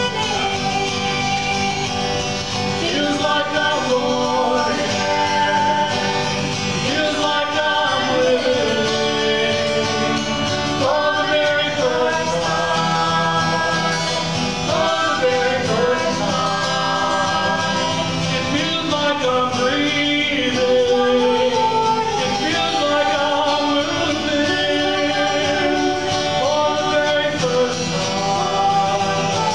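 A woman singing a song while strumming a steel-string acoustic guitar, played live.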